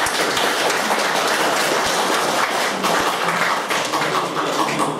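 Audience applauding: many people clapping together in a dense patter.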